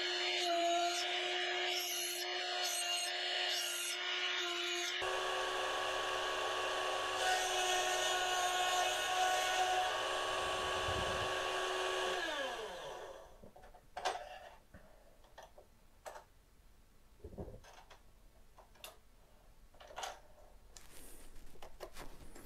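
Small bench mini mill's motor running with a steady high whine while its cutter cuts the teeth of a small gear wheel. About twelve seconds in the motor is switched off and its whine falls away as it spins down. A few light clicks and knocks of handling the workpiece in the machine's vise follow.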